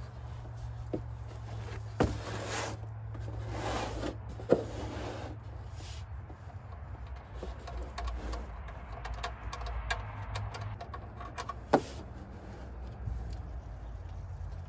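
Oil pan drain plug being loosened and unscrewed by hand, with a few sharp metal clicks and light handling noise over a steady low hum. Near the end the plug comes free and engine oil begins to pour out of the pan.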